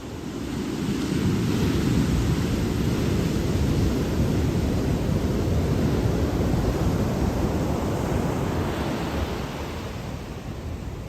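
Ocean surf: a wave rushes in, swelling about a second in, holding, and easing off again near the end.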